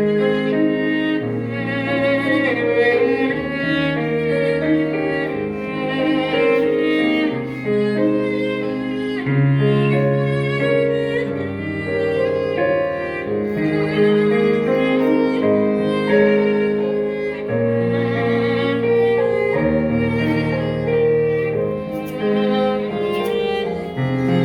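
A small ensemble playing a slow, lyrical tune live, with violin and cello over piano.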